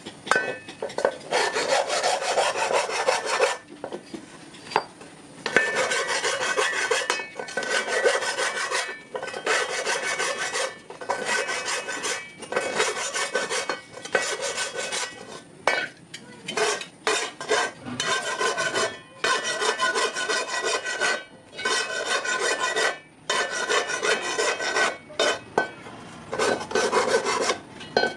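Metal kadai being filed or scraped by hand: repeated rasping strokes about a second long with short pauses between them, the pan ringing faintly under each stroke. The strokes turn shorter and quicker in the second half.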